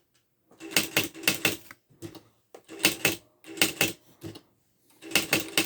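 Smith Corona 250 DLE electronic typewriter typing in several quick bursts of sharp key strikes separated by short pauses, with its automatic word-underline mode switched on.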